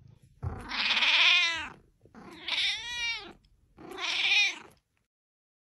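Domestic cat meowing three times: long, drawn-out calls that rise and then fall in pitch, the first the longest.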